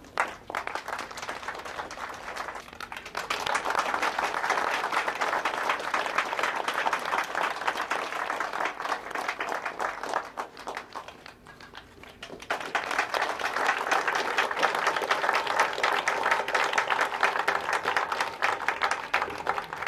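Crowd applauding: clapping builds up just after the start, falls away about eleven seconds in, then swells again about a second later into a second round.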